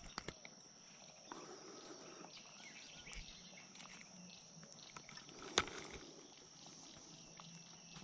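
Quiet riverside ambience with a faint steady high-pitched hiss, soft rustling of fly line being stripped by hand from a kayak, and one sharp click about five and a half seconds in.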